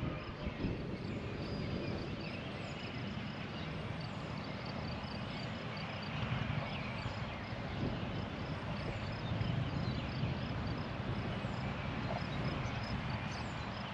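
Outdoor ambience of wind rumbling on the microphone, with faint high chirps repeating a couple of times a second.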